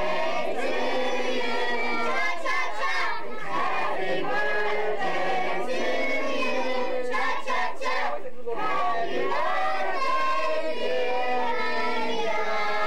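A crowd of young children's voices, shouting and chattering over one another.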